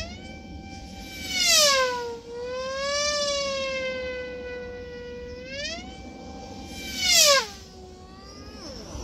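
Electric pylon-racing (F3E) model aircraft's motor and propeller whining as it laps the pylon at speed. The loudest moments come about one and a half and seven seconds in, as it passes close, and each time the pitch drops sharply as it goes by.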